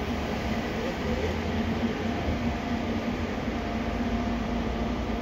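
Steady mechanical hum of a docked cruise ship's machinery and ventilation, with a low, uneven rumble of wind on the microphone.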